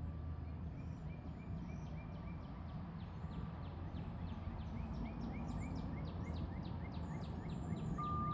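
Birds chirping in quick, repeated short calls over a steady low background rumble.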